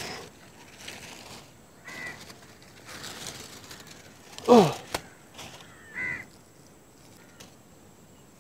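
Crows cawing now and then, two short calls a few seconds apart, with rustling of aluminium foil and charred banana leaf being peeled back. About halfway through there is one loud short call that falls steeply in pitch.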